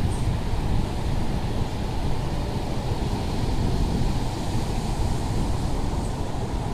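Wind buffeting the microphone as a steady low rumble over the continuous wash of surf breaking on the beach.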